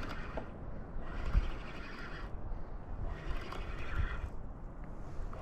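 Water swishing and splashing around a kayak in repeated surges about every two seconds, with a couple of faint low knocks.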